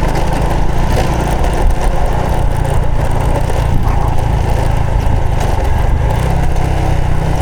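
Honda Supra X 125 FI's single-cylinder four-stroke engine running steadily while the motorcycle is ridden, with a dense rushing noise over the engine note.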